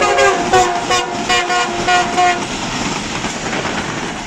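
A passing diesel locomotive's multi-tone horn sounding in a broken series of blasts, its pitch sinking slightly, until it stops about two and a half seconds in. Wheels clack over the rail joints as the train runs past.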